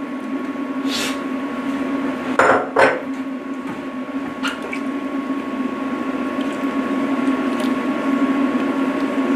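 A stainless cooking pot of curry being handled and stirred with a wooden spoon: a few sharp knocks against the metal pot, the loudest a close pair about two and a half seconds in, and the curry liquid sloshing, over a steady low hum.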